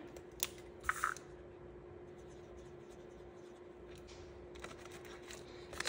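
Faint scratching of a Sharpie marker writing on a paper savings-challenge tracker, with a couple of short clicks in the first second, over a steady faint hum.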